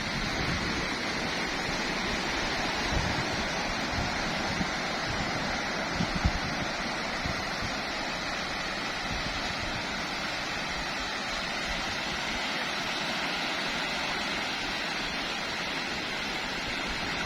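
Sea surf washing up on a sandy beach: a steady, even rush of breaking waves, with a few brief low bumps of wind on the microphone, the strongest about six seconds in.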